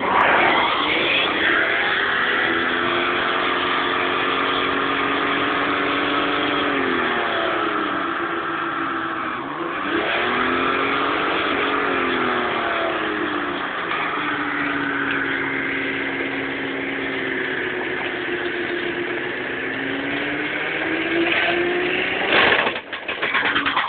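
Car burnout: the engine is held at high revs with the driven tyres spinning on the road, under a steady noisy hiss. The revs sag and pick up again about ten seconds in, and a few sudden loud bangs come near the end.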